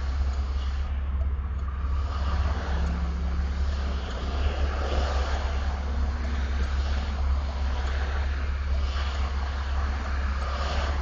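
Chevrolet Camaro engine idling with a steady low hum and a subtle roughness, the rough idle the owner is showing. Background noise comes in through the open T-tops and windows.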